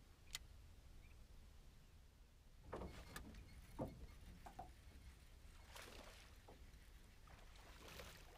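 Faint, scattered knocks, thuds and rustles of an angler moving about in a small jon boat while hooking and fighting a fish, over a low steady wind rumble. It begins with a sharp click, and the handling noises start a few seconds in, the loudest a thud just before the fourth second.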